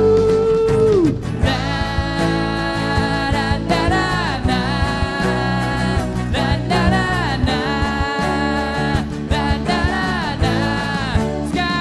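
Live pop band performance: a male lead vocal sung over acoustic guitar, drums and the rest of the band. It opens on a long held note that slides down about a second in.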